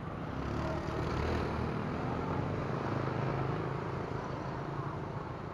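A motorbike passing on the road, its engine and tyre noise swelling up and then fading over a few seconds.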